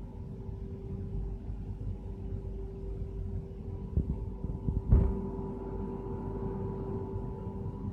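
Steady hum of factory machinery, with a constant mid-pitched tone over a low rumble, and a short thump about five seconds in.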